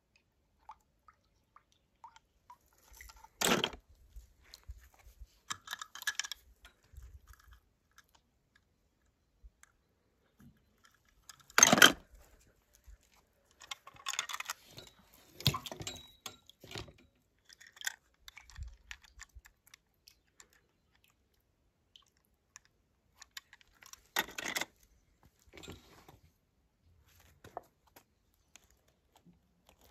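Small toy cars being handled, with irregular clicks, scrapes and clatters and three louder clatters: one a few seconds in, one near the middle and one later on.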